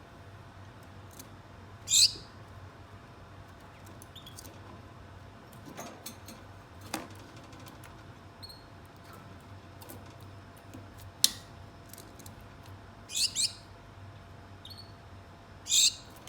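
Pet Gouldian finches calling: short, high call notes now and then, loudest about two seconds in, a quick pair near thirteen seconds and one near the end, with fainter peeps and ticks between.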